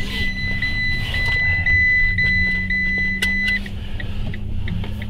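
Car engine running steadily, heard from inside the cabin. A high electronic warning tone cuts off about three and a half seconds in, and quick regular pips follow, about three a second.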